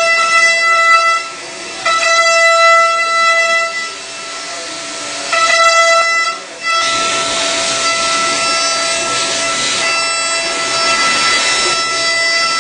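CNC milling machine's end mill cutting aluminium: a steady high whine with overtones over a hiss of cutting. It comes in three cuts of one to two seconds each with short breaks between, then runs on without a break from about seven seconds in.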